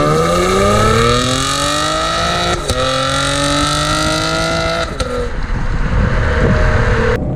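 2018 Chevy Camaro's 3.6-litre V6 under hard acceleration, revving up high with two paddle-shifted upshifts, about two and a half seconds in and about five seconds in, the pitch climbing after each, then settling into steadier running near the end.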